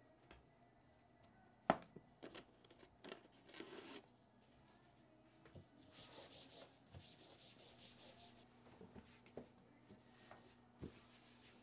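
Quiet handling noises: a sharp tap about two seconds in, then rustling and rubbing, with a few light knocks near the end.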